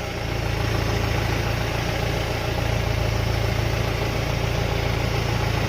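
Mahindra Bolero diesel engine idling steadily while the power steering is turned, with no belt squeal: the newly fitted power steering belt is tensioned correctly.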